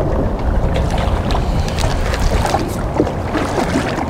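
Wind buffeting the microphone, a steady low rumble, with a few light clicks and knocks over it.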